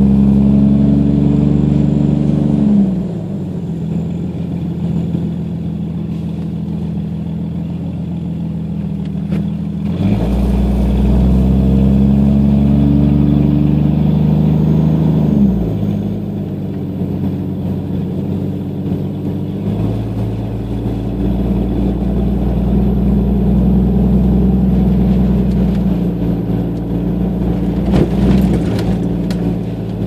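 1992 Jeep Cherokee XJ's 4.0-litre inline-six, straight-piped from the catalytic converter back, heard from inside the cab with the front windows down. The exhaust swells and climbs slightly in pitch under throttle twice, at the start and again about ten seconds in, and each time drops back sharply to a quieter, lower run when the throttle eases. It then holds steady.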